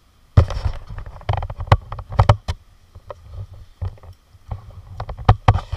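An abseil harness and its gear being handled right against a chest-worn camera: rubbing and a low rumble on the microphone, broken by sharp knocks and clicks, the strongest about half a second in, around two seconds in, and near the end.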